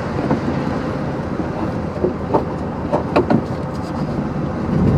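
Pickup truck running at low speed, a steady low rumble with a few short knocks or rattles in the middle.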